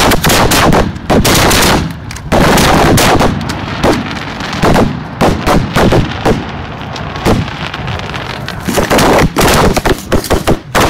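Fireworks firing at close range: rapid strings of sharp bangs from shells launching out of their tubes and bursting overhead. Very loud, with a few short lulls.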